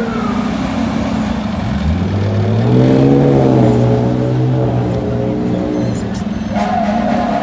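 Diesel engine of a Seagrave Marauder II tower ladder fire truck revving up as it pulls away, rising in pitch for about a second and then holding. At the start a siren winds down, and near the end a steady siren tone comes back in.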